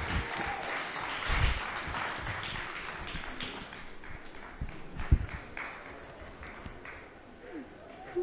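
Audience applause slowly dying away, with a single thump about five seconds in.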